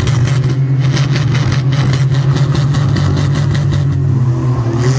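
Demolition derby car engines running loud and steady, with a dense crackle over a continuous low drone.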